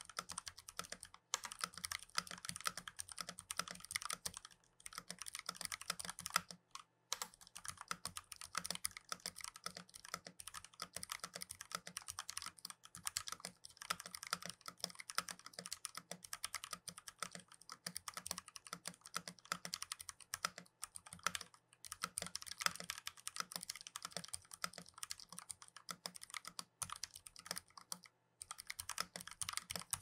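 Fast, continuous typing on a modded Royal Kludge RK84 75% mechanical keyboard: a rapid stream of key clacks with a few brief pauses.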